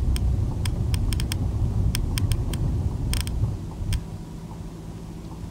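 Car cabin during a right turn: the turn-signal indicator clicking over the low rumble of engine and tyres. About four seconds in the clicking stops and the rumble drops to a quieter steady hum as the car slows.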